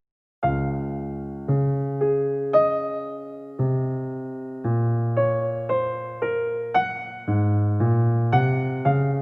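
Background music: electric piano playing a gentle melody of struck notes, each fading before the next.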